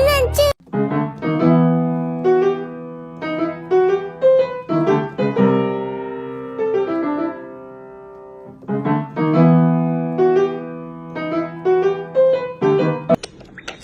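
Piano music: single notes and chords struck and left to ring, with a longer fading pause about halfway through.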